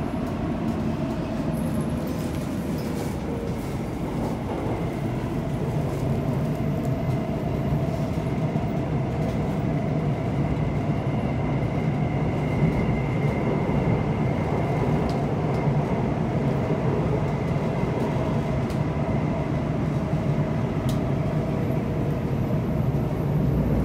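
Bombardier C951 metro car running through a tunnel, heard from inside the passenger cabin: a steady rumble of wheels on rail with a faint high steady whine.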